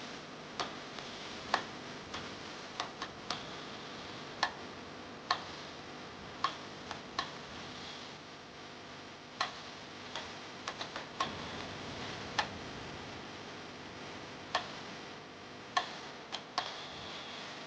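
Irregular sharp clicks and light taps, roughly one a second and sometimes in quick pairs or triplets, over a steady hiss, as of small metal parts or tools being handled at a workbench.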